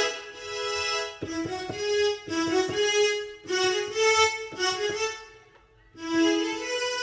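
Yamaha PSR-S970 arranger keyboard playing a violin-like string voice: a short melody of separate notes, with a brief pause about five and a half seconds in before the playing resumes.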